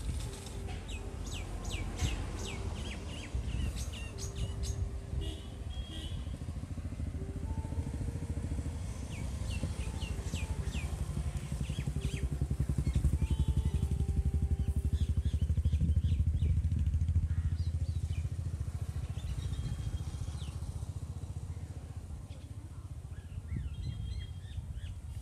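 An engine running, a pulsing low rumble that swells louder around the middle and eases off again, with birds chirping and calling over it.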